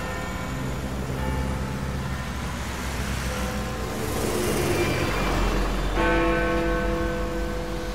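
Background music of held chords, with a swelling rush of noise about four seconds in, then a new deep chord coming in about six seconds in.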